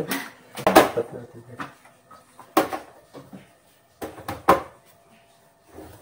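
Items being shifted around on refrigerator shelves: a few short knocks and clunks with quiet gaps between.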